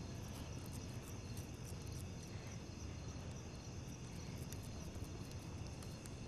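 Steady low hum and hiss of background noise, with faint scattered small clicks.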